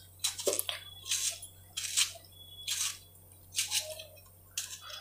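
Knife cutting through a tomato held in the hand, the pieces dropping into a pot of chopped vegetables: soft, wet slicing sounds, one roughly every second.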